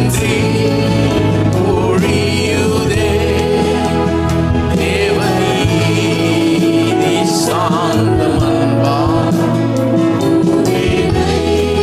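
Tamil Christian worship song: a man's lead voice and a congregation singing along, over steady band accompaniment.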